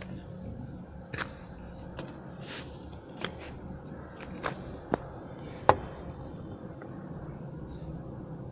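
A few light clicks and taps, about six in all, from a small plastic food-colouring bottle and its cap being handled and set down on a tabletop. The sharpest click comes near the end.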